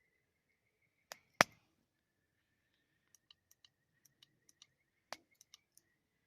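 Wood campfire crackling: a loud pop about a second and a half in, then scattered small snaps and another pop near the end.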